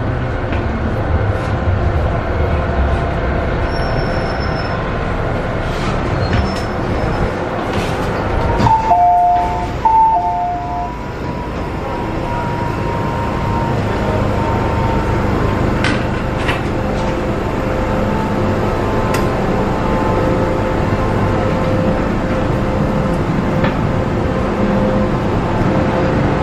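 Inside an MTR M-train metro car: train running noise swelling as it comes into a station, then a two-note electronic door chime sounding twice in quick succession about nine seconds in. After that, the stopped train's steady electrical hum with a thin high tone.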